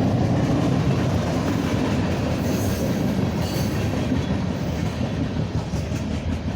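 CSX mixed manifest freight train rolling past, a steady rumble and rattle of wheels on rails with no letup.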